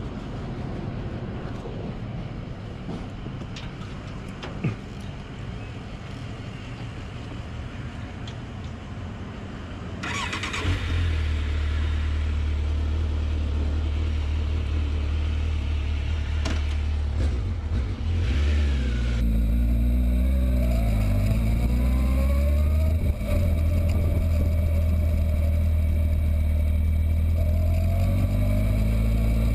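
Kawasaki Z750S inline-four motorcycle engine starting about a third of the way in and idling steadily, then revving up and down as the bike pulls away.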